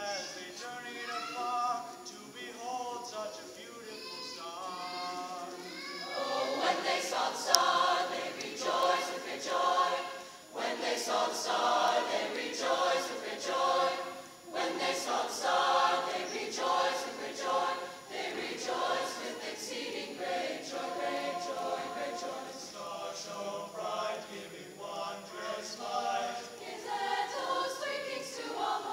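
Mixed choir of men's and women's voices singing. It is quieter for the first few seconds and becomes fuller and louder about six seconds in.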